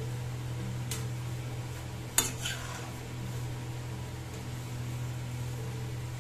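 Metal spatula knocking against a steel kadai while stirring chopped spinach: a light tap about a second in, then one sharp clack just after two seconds. A steady low hum runs underneath.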